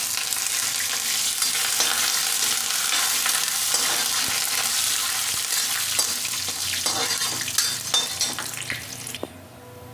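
Fresh curry leaves sizzling and crackling in hot oil in a kadhai, among mustard seeds, cumin, dried red chillies and dal in a tempering, while being stirred with a metal spoon. The sizzle cuts off suddenly about nine seconds in.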